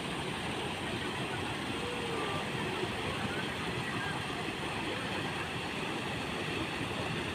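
Steady rushing of a small rock waterfall pouring into a pond.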